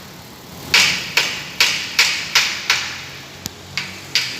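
Repeated hammer-like strikes on metal, about two to three a second with a short ring after each, starting under a second in.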